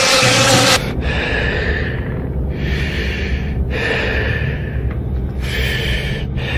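A person breathing heavily, about four long breaths with short pauses between them, over a low steady hum. A louder noisy sound cuts off suddenly under a second in.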